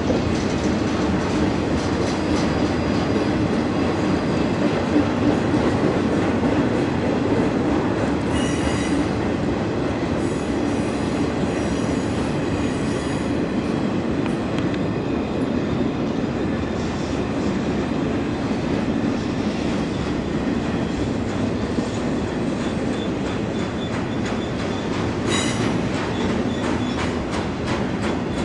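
CSX intermodal freight train's cars rolling past: a steady rumble of steel wheels on rail with a clicking rhythm. High wheel squeals come in about a third of the way through and briefly again near the end.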